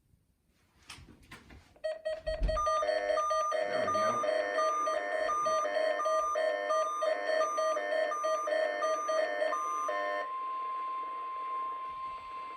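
Electronic emergency-alert tones from a weather radio / EAS receiver. A few faint clicks, then a beeping alarm of two alternating tones about twice a second for around eight seconds. It changes near the end to a steady single tone near 1 kHz, the NOAA Weather Radio warning alarm tone.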